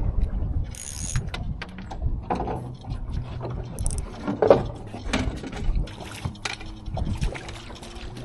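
Fishing reel being cranked to bring in a hooked trout: a run of quick mechanical clicks and rattles from the reel's gears over a steady low hum.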